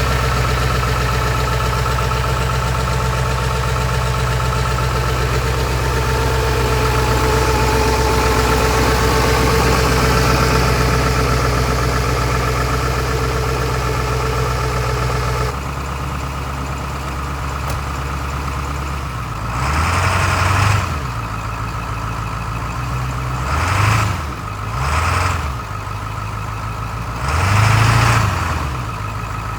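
Ford 7.3 Powerstroke V8 turbo-diesel idling steadily soon after a cold start. About halfway in the sound drops abruptly to a quieter idle, broken by four short revs that rise and fall.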